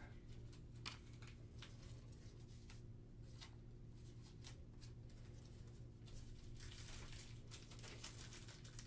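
Near silence with faint rustling and light ticks of basketball trading cards being slid into clear plastic sleeves and laid down, over a low steady hum.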